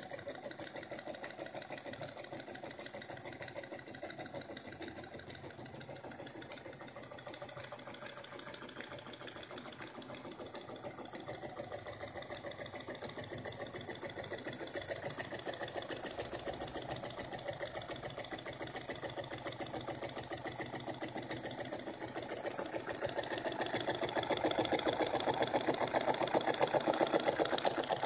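Small homemade single-cylinder steam engine running fast on its first run: a rapid, even chuffing of exhaust steam with a hiss, growing louder in the second half.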